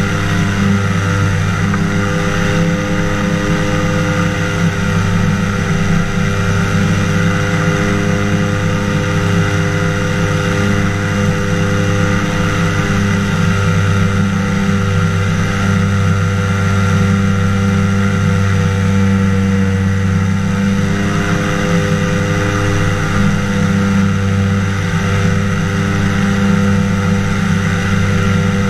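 Engine and propeller of a microlight flying boat, a trike wing over an inflatable boat hull, running steadily in cruise flight. It is a constant, loud drone that holds the same pitch throughout.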